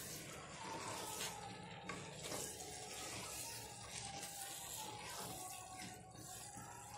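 Mixed vegetables and paneer in masala sizzling faintly in a pot while a wooden spatula stirs them, with a few light scrapes against the pan.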